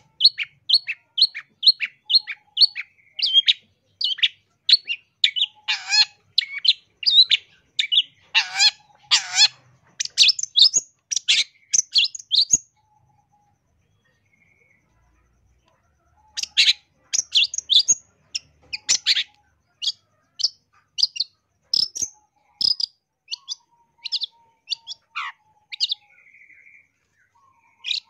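Long-tailed shrike (cendet) singing: a fast run of short, sharp high chirps, about two or three a second, with a few harsher, louder notes mixed in. The song stops for about three seconds near the middle, then starts up again.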